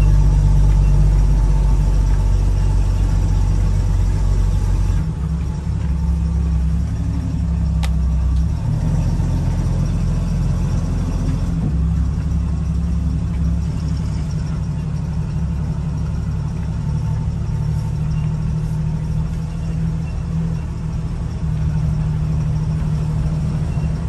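1975 AM General DJ5-D postal Jeep's engine running while it drives, heard from inside the cab. The engine note shifts about five seconds in and again around twelve seconds. One sharp click comes about eight seconds in.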